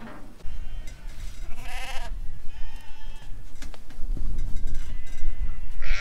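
Sheep bleating in a pen: a clear wavering bleat about two seconds in, a fainter one just after, and another at the very end. A low rumble and a few short knocks run underneath.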